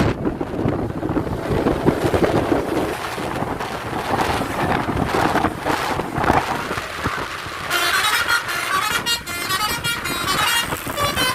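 Bus engine and road noise, then, about eight seconds in, a multi-tone 'telolet' (Basuri) bus horn starts playing a quick run of repeating musical tones.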